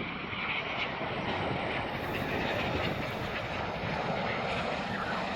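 Airbus A350 jet airliner's engines, a steady rush of jet noise that grows slowly louder as the aircraft comes nearer.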